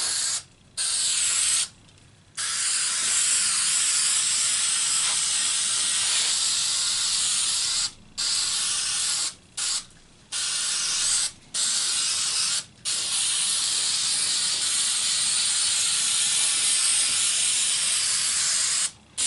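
Aerosol can of spray glue hissing: two short squirts, then long sprays of several seconds each, stopping and restarting briefly several times.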